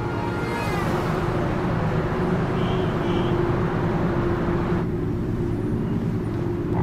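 Steady whoosh of city highway traffic, strongest from about half a second in until nearly five seconds, over a low steady drone. Two brief high tones sound about three seconds in.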